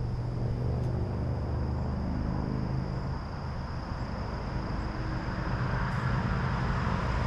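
A steady, low engine drone from a distant motor, with a thin steady high tone running through it.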